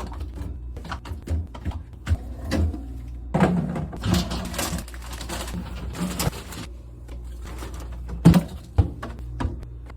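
Groceries being handled and set into a refrigerator: plastic bottles and containers knocking and clicking on the shelves, with a few seconds of packaging rustle in the middle and a sharper knock near the end, over a steady low hum.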